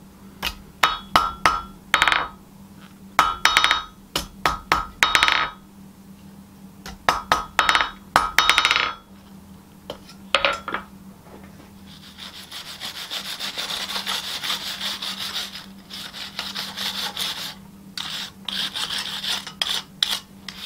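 Hand hammer striking a thin hot spring-steel bar on an anvil in quick groups of blows, each with a bright anvil ring. In the second half the hammering stops and a steady rasping, scrubbing sound of something rubbed back and forth over the steel takes over.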